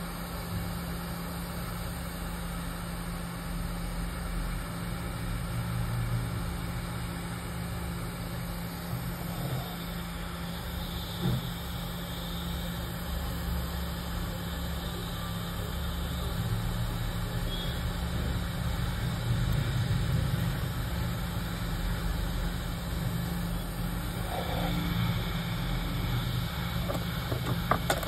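Hot air rework station blowing steadily onto a phone's logic board to heat a chip's solder: a constant rush of air over a low steady hum. A few sharp clicks come near the end.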